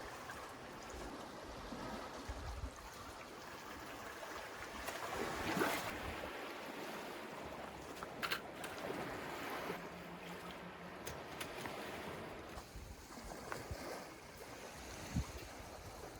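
Sea water washing and sloshing, swelling about five seconds in, with a few sharp clicks.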